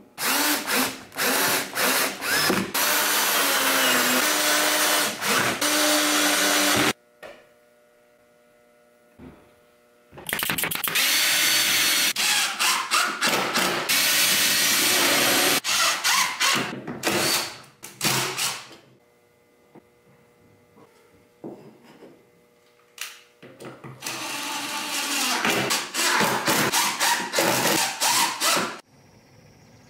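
Cordless drill/driver running in three long runs with pauses between, drilling and driving screws into plywood.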